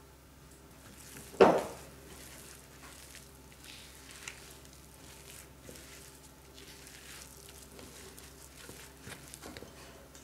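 Silicone spatula stirring and scraping crumbly cookie dough around a glass mixing bowl, a string of faint, irregular scrapes. One sharp, loud knock with a short ring comes about a second and a half in.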